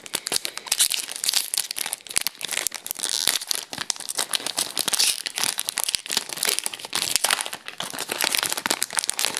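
Foil wrapper of an Upper Deck Series 1 hockey card pack being pulled open and crinkled by hand: a dense, continuous run of irregular crackles and rips.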